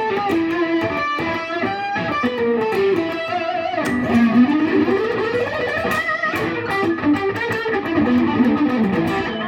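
Samick Malibu electric guitar with rails pickups, played through the distorted gain channel of a Peavey Bandit amp. It plays a melodic line of single notes with slides up and down in pitch.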